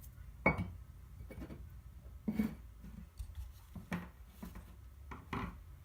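A few scattered clicks and knocks as the parts of a DeWalt sander are handled during disassembly, over a faint low hum.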